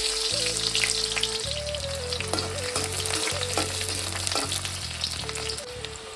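Food sizzling and crackling in hot oil in a pan, just after being dropped in, with soft background music beneath.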